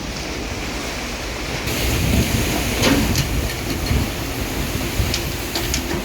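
Storm wind buffeting the phone's microphone over churning, splashing water, with a run of sharp knocks in the second half.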